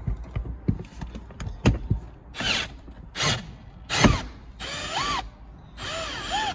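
Windshield cut-out winder being cranked to pull fiber line through the glass urethane: irregular ratcheting clicks and knocks. In the second half come several short, harsh squeals that rise and fall in pitch.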